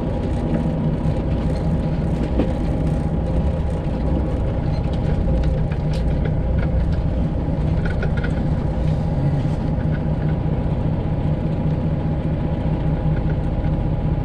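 Detroit Diesel 12.7-litre engine of a Freightliner Classic XL semi truck running steadily at low speed, heard from inside the cab.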